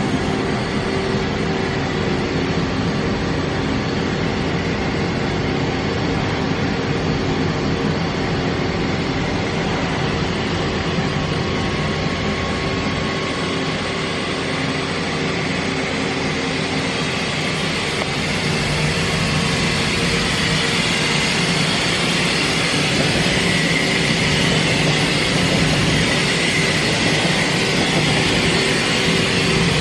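Mazak Variaxis 630-5X five-axis machining center running under power: a steady mechanical hum with several held tones under a hiss. The hiss grows stronger and a little louder in the second half.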